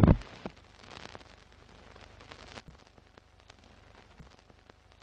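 A loud hit at the very start, then the crackle of an old film soundtrack: faint hiss with scattered clicks and pops over a low hum.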